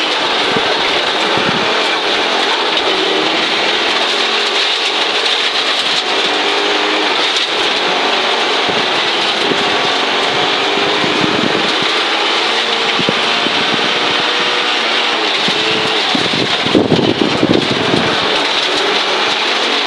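Onboard sound of a 1983 Audi Quattro Group B rally car, its turbocharged five-cylinder engine running hard with revs rising and falling through the gears, over a constant rush of gravel spraying against the underbody. A louder, rougher burst of road noise comes near the end.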